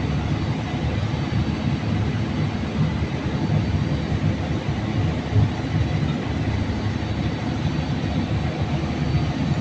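Steady low rumbling background noise, uneven in strength.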